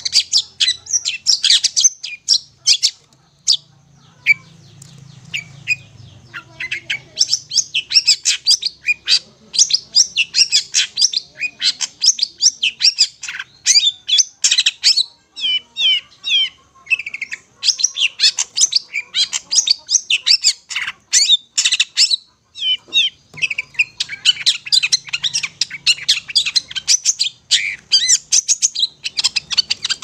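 Long-tailed shrike (cendet) singing: a continuous, fast run of sharp high chirps and twittering notes with only brief gaps.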